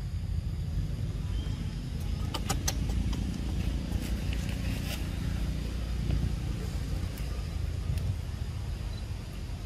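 Steady low outdoor rumble, with a few sharp clicks: a cluster about two to three seconds in, another near five seconds and one at eight seconds.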